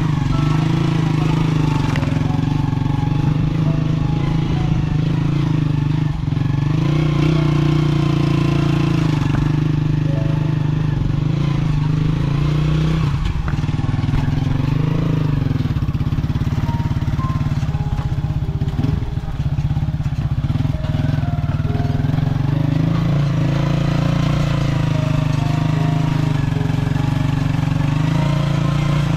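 A loud, steady engine drone that keeps an even pitch.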